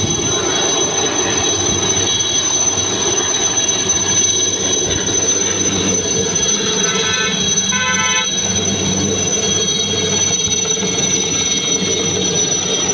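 Indian Army Cheetah light helicopter's turbine and rotor hovering, then climbing away without landing: a steady high turbine whine over loud rotor noise. Around seven to eight seconds in, a brief run of short higher tones sounds over it.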